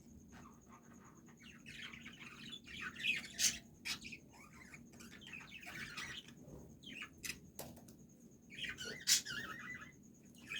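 Small birds chirping in three busy bursts of rapid calls, with a few sharp clicks in between.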